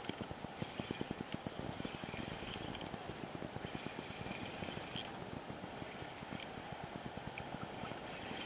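Spinning fishing reel being cranked steadily to retrieve line: a faint, fast, even ticking with a few light clicks.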